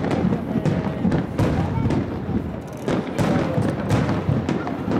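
Aerial firework shells bursting in quick succession: a string of sharp bangs, several a second, over a continuous low rumble.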